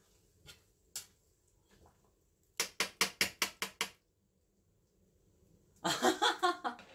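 Metal kitchen tongs tapped rapidly, about seven sharp knocks in just over a second, after a few faint clicks. A voice is heard briefly near the end.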